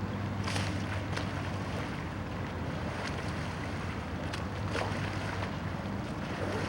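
Wind buffeting the microphone over open water, with a steady low rumble and a few brief splashes of water.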